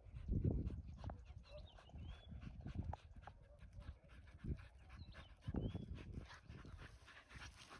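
Hunting dogs, one a Brittany spaniel, panting and sniffing as they work the ground, with irregular low rumbling surges and a few faint high chirps.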